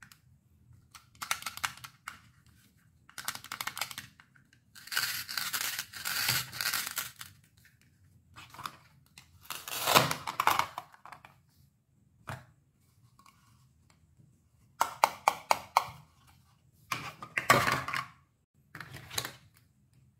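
Hook-and-loop fastener strips ripping apart as the halves of plastic toy fruits and vegetables are cut with a plastic toy knife and pulled apart. About seven short rips with quiet gaps between them, the longest about two seconds in from the start.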